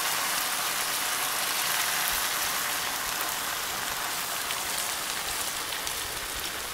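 Arborio rice, leeks and white wine sizzling steadily in a hot enamelled pan while being stirred with a spatula: the wine cooking down and being absorbed into the toasted rice. Faint soft knocks of the spatula come in the middle of the stretch.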